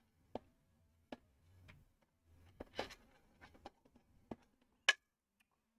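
Plastic LEGO pieces being handled and set down on a table: about eight faint, separate clicks and taps, the sharpest one about five seconds in.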